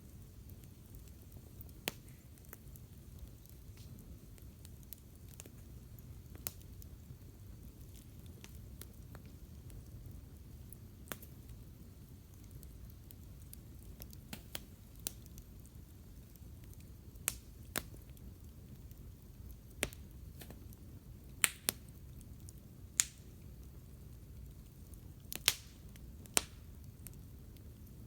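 Wood campfire crackling: sparse, irregular sharp pops, a few louder ones in the second half, over a faint low steady rumble.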